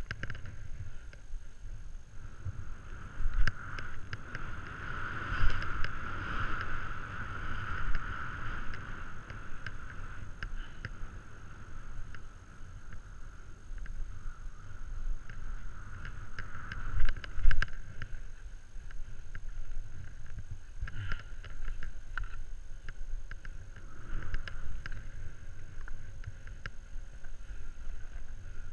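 Skis hissing and scraping over snow on a steady downhill run, with a low wind rumble on the microphone. Scattered clatters and a few louder thumps, about three and five seconds in and again around seventeen seconds, come from the skis and pole knocking over bumps.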